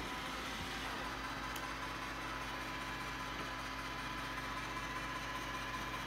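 Shark IQ and Roomba i6 robot vacuums running as they drive across a rug toward their docks: a steady, even motor hum with a few constant tones.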